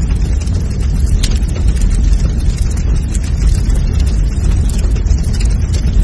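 Fire sound effect of an animated logo intro: a steady, loud low rumble with dense crackling.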